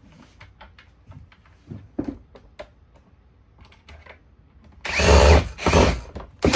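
Light clicks and taps of a screw and plastic parts being handled, then a cordless drill/driver running in three short bursts near the end, driving a screw into the Shark vacuum's plastic housing.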